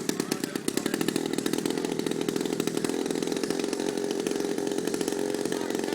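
Gasoline engine of a giant-scale RC airplane running steadily at a fast, even firing rate.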